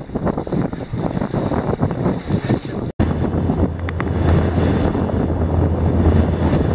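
Wind buffeting the microphone over the running motor of a small boat and water rushing past the hull. A brief dropout about three seconds in; after it the motor's steady low hum is plainer.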